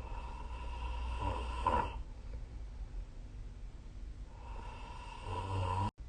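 A person snoring in sleep: two long snores about two seconds apart, each a rough, rattling breath with a low rumble. The second snore cuts off abruptly near the end.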